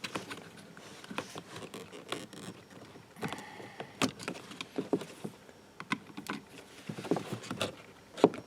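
Scattered light plastic clicks and taps of a car window-switch panel and its wiring plug being handled and worked loose by hand, with a short squeaky scrape a little over three seconds in.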